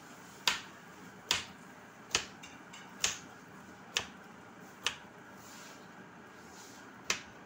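Knife chopping squash on a plastic cutting board: the blade knocks sharply on the board about once a second, seven times, with a longer pause before the last knock.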